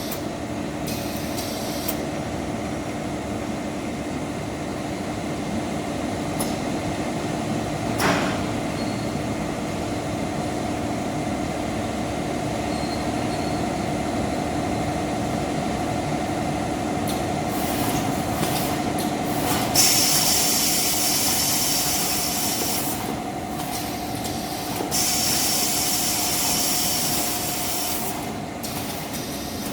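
A 2200 mm automatic band saw cutting machine for maxi paper rolls running, with a steady mechanical hum. There is a sharp knock about eight seconds in, and a loud high hiss comes and goes in the second half.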